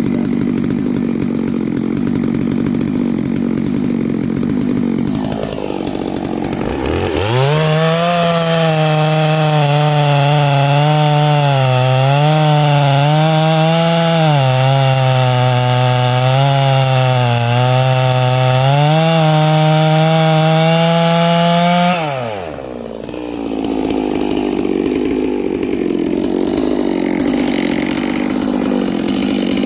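Neo-tec NS892 two-stroke chainsaw idling, then revved up about seven seconds in and held at high revs for about fifteen seconds, its pitch dipping and recovering several times, before dropping back to idle.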